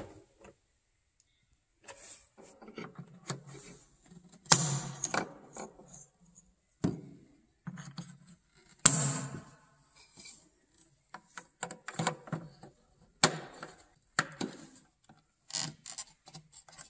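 Handling noise from a car's plastic tail light assembly as it is pulled free and its wiring connector unplugged: irregular clicks, knocks and rubbing of hard plastic, with louder clatters about four and a half, nine and thirteen seconds in.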